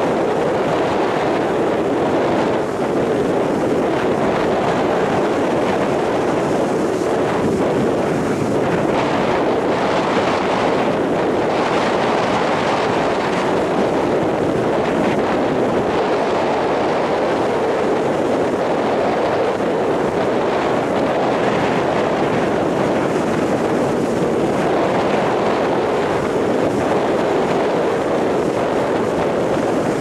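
Rough surf breaking and washing up a sandy beach in strong wind: a steady, unbroken wash of waves whose loudness hardly changes.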